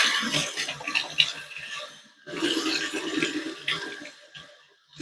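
Water splashing unevenly in a kitchen sink, in short irregular stretches.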